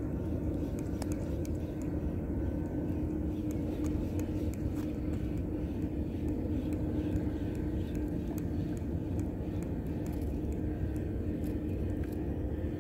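Steady low engine drone with a constant hum, from a distant motor.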